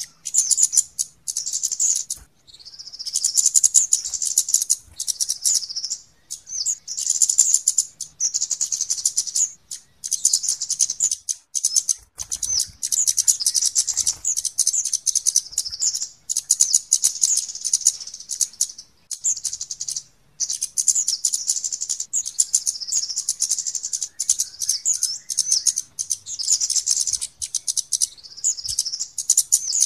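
Flowerpeckers (kemade / cabe) giving rapid, high-pitched ticking calls, a dense, busy chatter broken by short pauses every few seconds.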